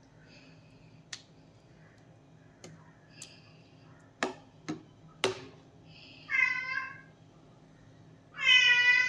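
Two high, wavering cries, a short one past the middle and a louder, longer one near the end, after a few sharp clicks of a metal spatula against the pan.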